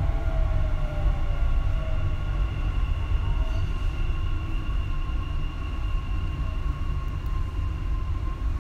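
Dubai Metro train running along its track, heard from inside the car: a steady low rumble with a high electric whine held on one pitch. In the first second or so a tone slides down in pitch.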